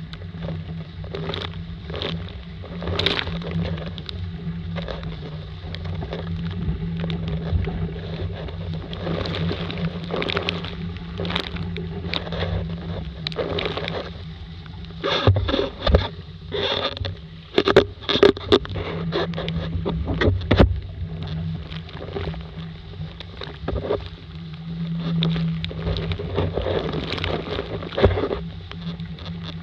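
Water rushing and splashing along a Laser sailing dinghy's hull as it sails fast through chop, with irregular sharp knocks as the hull slaps into waves, thickest about halfway through. Heard from a camera on the deck, with wind buffeting the microphone.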